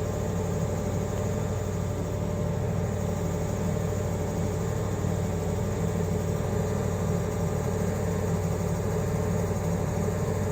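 Steady mechanical hum of an engine or motor running at a constant speed, with several fixed low tones and no change in pitch or level.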